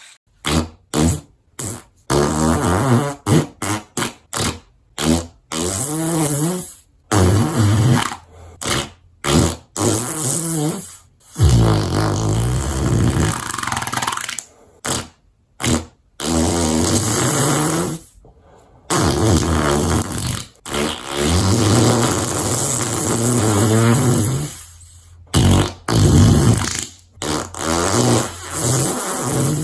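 Fart after fart in quick succession: a run of short ones at first, then longer drawn-out ones with a wavering pitch, and short ones again near the end.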